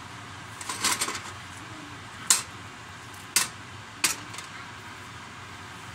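Nonstick frying pan of spaghetti being shaken on an electric stove burner: a few light clatters about a second in, then three sharp knocks of the pan in the middle, over a steady hiss.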